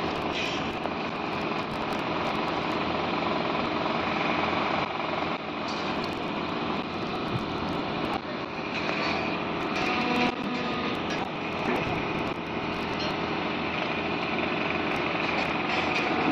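Diesel engines of mobile cranes running steadily while they hold a precast concrete I-girder suspended in the air.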